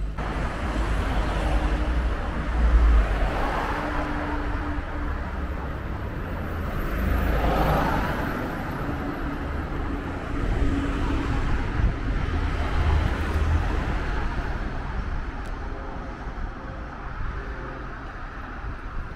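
Street traffic: cars driving past on the road, their sound swelling and fading, with the closest passes about three and eight seconds in.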